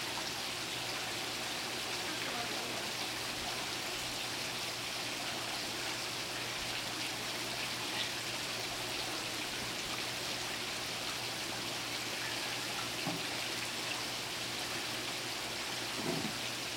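Two pool water jets arcing from the pool wall and splashing into the pool: a steady splashing hiss of falling water.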